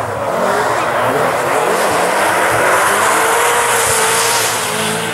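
Volkswagen Golf rally car driven hard on a loose gravel stage, its engine held at high revs with the note climbing slightly over a few seconds. Under it runs a steady spray of gravel and tyre noise.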